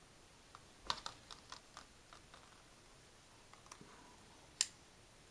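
Light plastic clicks and taps as a small Samsung HMX-W200 camcorder is handled and turned over in the hands: a quick cluster of clicks, a few more, then one sharper click near the end.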